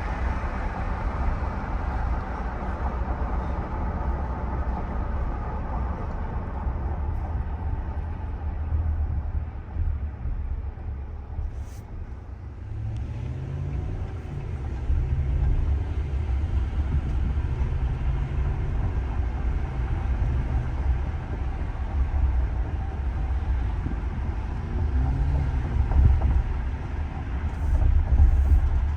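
Cabin sound of a 2023 Ram 1500 Limited on the road: steady low rumble with road and tyre noise that fades over the first ten seconds or so, and a single click about twelve seconds in. From then on the 5.7-litre Hemi V8's note comes through, its pitch rising and falling as the truck pulls and the eight-speed automatic shifts.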